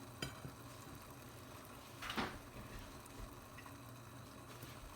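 Faint handling sounds of cut lemon and mandarin pieces being put into a bowl by hand: a light click just after the start and one short, slightly louder knock about two seconds in, then a few tiny ticks.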